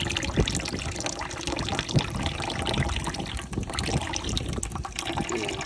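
Water pouring and splashing with a steady, uneven trickle as an air conditioner's condensate drain line is overfilled.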